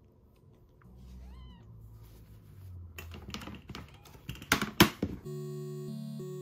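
A very young kitten gives one thin, high mew about a second in. A few seconds later comes rustling with several sharp knocks, the loudest sounds here, and then cheerful music starts near the end.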